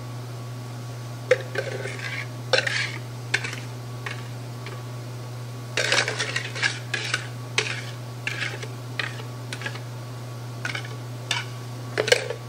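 Wire whisk clinking and scraping against a mixing bowl as chocolate pie filling is poured and scraped out. The taps come in scattered groups, busiest about six to eight seconds in, over a steady low hum.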